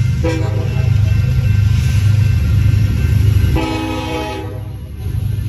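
Air horn of an approaching Union Pacific EMD SD70ACe locomotive sounding two blasts for the grade crossing, each about a second long, the first right at the start and the second about three and a half seconds in, over a steady low rumble.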